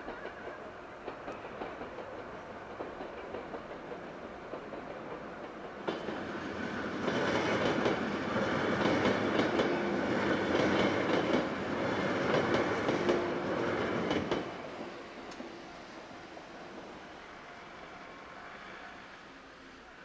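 JR 103 series electric train passing over a level crossing, swelling in about six seconds in and fading after about fourteen seconds, with rapid clickety-clack of its wheels over the rail joints. The crossing's warning bell rings steadily before and after the train.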